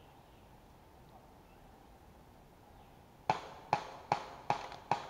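Near silence, then about three seconds in a regular run of five sharp knocks, about two and a half a second.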